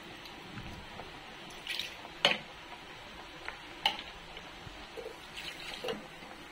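Thick tomato purée simmering in an aluminium kadhai, bubbles bursting with a few sharp pops, loudest about two seconds in and again near four seconds, over a steady faint hiss.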